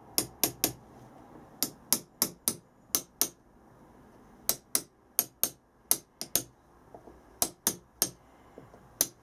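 Light, sharp metal-on-metal taps in short runs of two to four: a rod set in a casting pattern being rapped with a small metal tool to loosen the pattern in the sand mould before it is drawn out.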